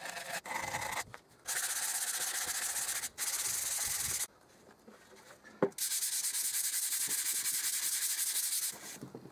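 Hand sanding bare wood with 120-grit sandpaper, the final light sanding before the finish goes on: steady scratchy rubbing strokes in spells of a second or more. The sanding stops for about a second and a half halfway through, and there is a brief knock just before the last long spell.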